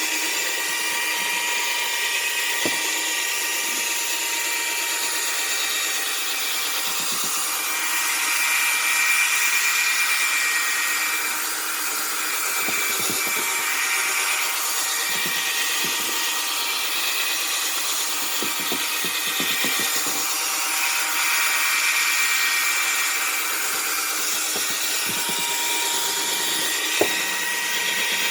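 Electric drill spinning a worn buffing pad against a plastic headlight lens, working polish into it; the motor runs steadily with a whine, swelling a little in loudness twice, with a sharp click near the start and another near the end.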